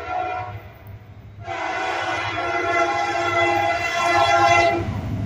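EMD SD70MAC locomotive's multi-chime air horn sounding for a grade crossing: the tail of one blast fades out, then after a break of under a second comes one long blast of about three and a half seconds. Under it runs the steady low rumble of the approaching freight train.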